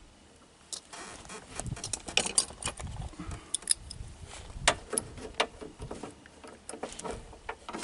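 Rapid irregular metallic clicks, taps and scrapes, starting about a second in, as the vent window's adjustment linkage is refitted by hand in a Mercedes-Benz W108 door.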